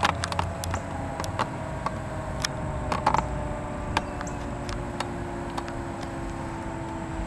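Tornado sirens sounding in the distance, faint steady tones that drift slowly in pitch. Scattered sharp clicks sound over them.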